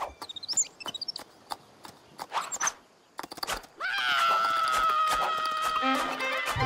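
Cartoon sound effects: a flurry of light clicks with a few short squeaky chirps, then, about four seconds in, a long high-pitched cry held for over two seconds, sinking slightly in pitch.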